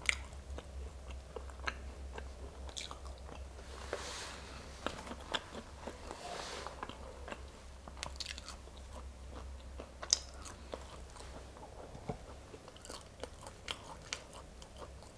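Boiled velvet bean (Mucuna) pods being split open by hand and the beans chewed close to the microphone: scattered soft clicks and crackles, with a sharper click about ten seconds in.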